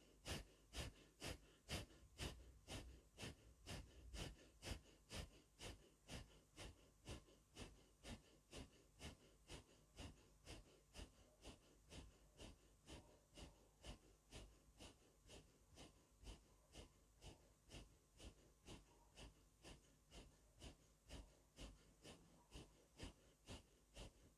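Rapid, rhythmic forceful breathing, about two and a half breaths a second, steady and faint. This is the breath rhythm of silent Naqshbandi Owaisi zikr (zikr-e-khafi), done on the heart (qalb).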